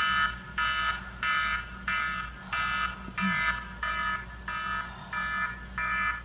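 Electronic alarm beeping in a steady, even rhythm, about one and a half beeps a second, each beep a short multi-tone buzz.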